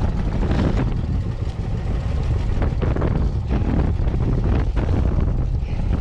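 Small fishing boat's motor running steadily at sea, with wind buffeting the microphone and a few short knocks or splashes.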